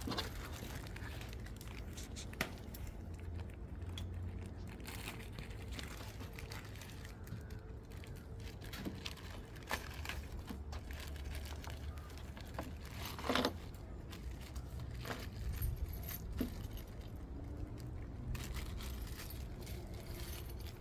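Small metal tools and hardware (wrenches, screws, valve caps) clinking and rattling inside their plastic packets as they are handled, in scattered light clicks with one louder clatter about 13 seconds in.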